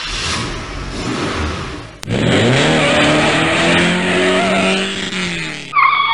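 Car engine sound effect: about two seconds of rushing noise, then a sharp click and the engine revs up quickly and holds a high, steady rev. A high wavering squeal takes over near the end.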